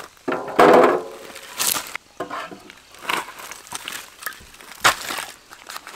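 Things being handled on a camp table: a short ringing clatter about half a second in, then crinkling and scattered knocks.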